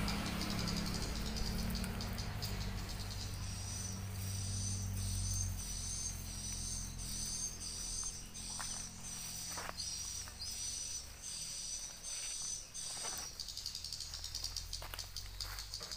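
An insect calling with a high, pulsed trill, about one and a half pulses a second, starting about three seconds in and stopping a few seconds before the end. A few soft clicks and rustles come from hands working string and leaves.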